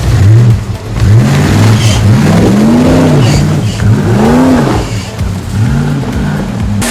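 An engine revving hard, its pitch rising and falling back in four or five repeated swells, with the sound changing abruptly near the end.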